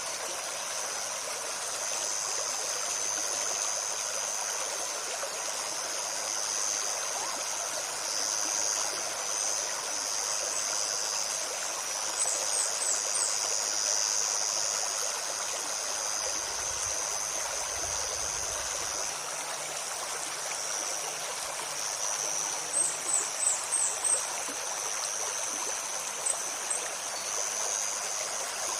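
A forest stream babbling steadily over stones, with a steady high-pitched hiss above it. A small bird gives quick runs of four or five thin high notes about twelve seconds in and again twice near the end.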